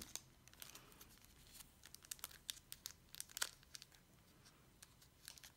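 Faint crinkling and crackling of the clear plastic wrapper on a Hobonichi Weeks planner as it is handled, scattered small clicks with a few louder crackles about halfway through.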